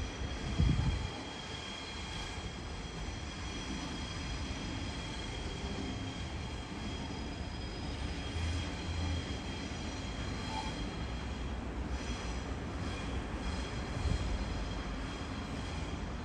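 Waratah double-deck electric train running slowly over curved junction tracks and points, a steady rumble with a high-pitched squeal from the wheels on the curve. A low thump about a second in, and another near the end.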